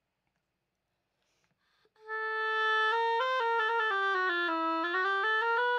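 Oboe played with a freshly clipped double reed, testing it after the tip was trimmed to bring the crow back up to pitch. After about two seconds of quiet it sounds a steady phrase of notes stepping down and back up.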